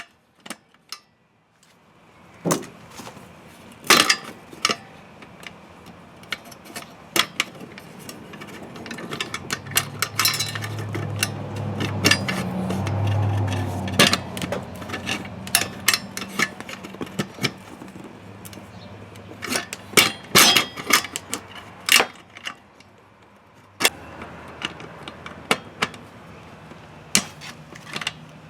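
Small metal clicks and taps of hand tools on the screw terminals and wires of an air conditioner disconnect box, as the terminal screws are loosened and the wires worked free. A low hum swells in the middle and fades out a few seconds before the end.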